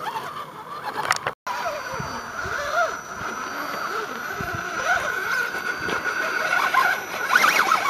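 Electric motor and gear whine of a 1/10-scale Axial SCX10 RC rock crawler driving slowly up rock: a steady high whine, broken by a brief silent gap about a second and a half in and rising in level near the end.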